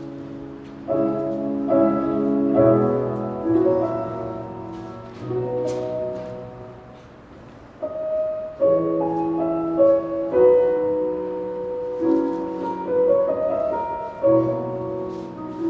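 Piano music playing slow, sustained chords, each struck and left to ring.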